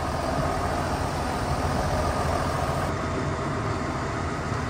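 Steady rumble of a motor vehicle on the move: engine and road noise, with a faint hum that fades out about three seconds in.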